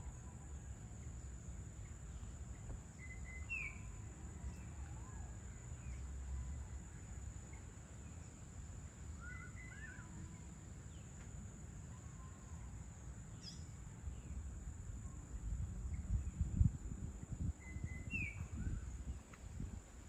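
Birds chirping outdoors at dusk: a few short, separate calls every few seconds over a steady low rumble and a thin, constant high tone.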